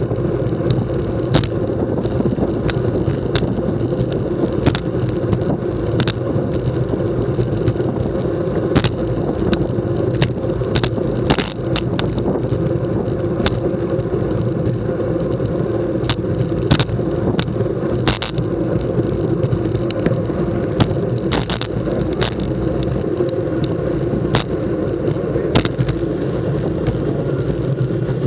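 Road bike rolling fast on a concrete road, heard from a camera mounted on the bike: a steady rumble of tyres and rushing air, with sharp clicks and knocks about every second.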